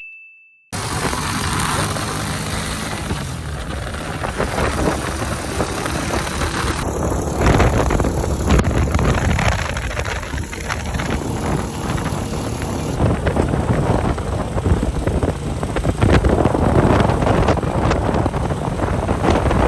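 Engine of a moving vehicle running steadily, with wind rushing over the microphone; it cuts in abruptly just under a second in.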